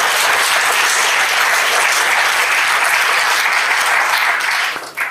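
Audience applauding steadily, the clapping dying away quickly near the end.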